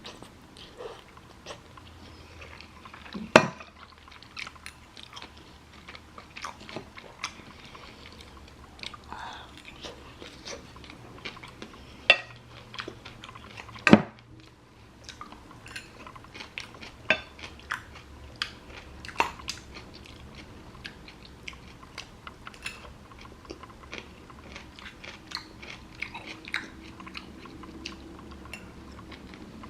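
Close-miked chewing and crunching of black bean noodles and kimchi, with many small wet clicks of the mouth. Two louder knocks, about three and fourteen seconds in, sound like a utensil striking the bowl.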